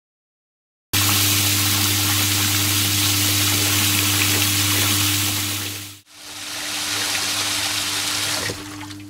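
Water gushing from inlet pipes into a stainless-steel cow footbath tub as it refills, a loud even rush with a steady low hum under it. It starts about a second in, breaks off briefly about six seconds in, then resumes and eases near the end.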